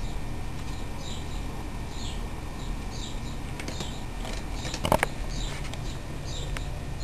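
Small birds chirping, short high calls about once a second, with a brief clatter about five seconds in.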